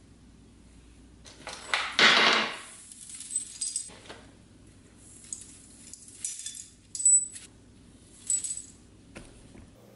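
Small steel bolts, nuts and washers rattling and clinking in a metal mesh strainer as they are scooped out of a vibratory tumbler bowl. The sound comes in a series of short jangling bursts, loudest about two seconds in, with a couple of sharp ringing metal clinks near the end.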